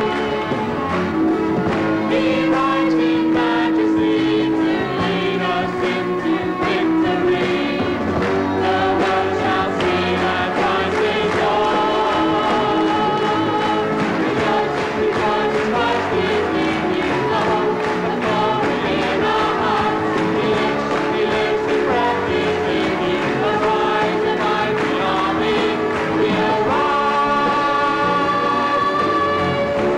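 Congregation singing a lively worship song together, backed by a band of drum kit, electric bass guitar and keyboards with a steady beat.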